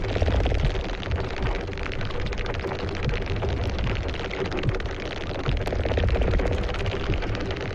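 A stalker beetle sound effect: dense, continuous crackling clicks over a low rumble and a steady hum.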